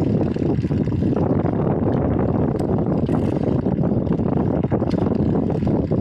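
Steady wind rush buffeting a small action camera's microphone, mixed with the rolling rumble of a BMX bike being ridden, with a few faint ticks.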